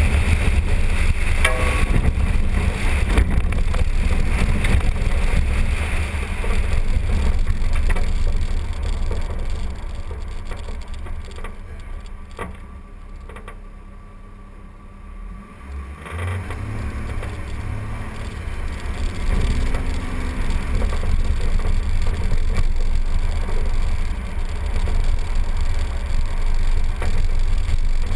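A 2012 Jeep driving on dirt and gravel, heard from a hood-mounted camera as a steady low rumble of wind and road noise on the microphone. The noise falls away about halfway through as the Jeep slows to turn onto a gravel road, then builds back up as it picks up speed.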